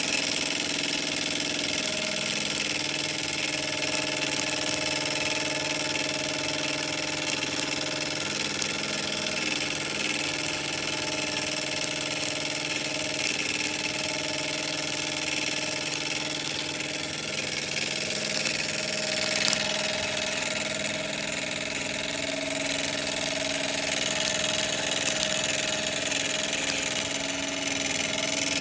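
Microcosm M89 miniature steam engine running steadily at speed, a steady hum with a continuous hiss of escaping steam over it.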